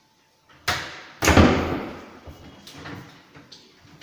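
Overhead kitchen wall-cabinet doors being swung and knocked shut: a sharp knock just after half a second, a louder bang a moment later, then a few lighter knocks and taps toward the end.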